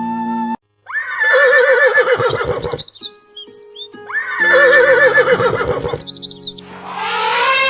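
Two long, quavering farm-animal calls, one after the other, over background music.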